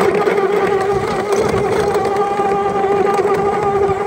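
Razor electric youth quad's motor and chain drive running with a steady, even-pitched whine as it rides across grass; really loud.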